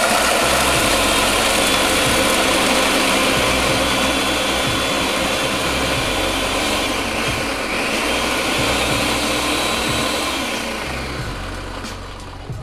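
Electric blender running and grinding chips. It starts abruptly, runs steadily, then eases off and stops near the end.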